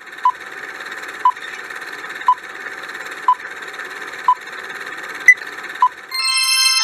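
Quiz countdown timer sound effect: a short beep about once a second over a steady hiss, with one higher, louder beep near the end. A bright chiming jingle starts just before the end as time runs out.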